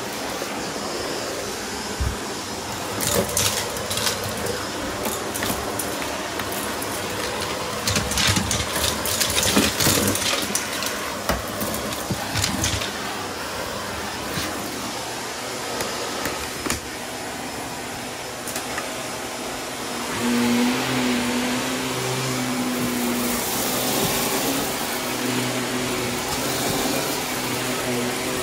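Shark cordless vacuum running on carpet with its bare wand, small debris clicking and rattling up the tube, busiest about eight to ten seconds in. About twenty seconds in it turns to a steadier motor hum with a low tone, as the floor head is run over the carpet.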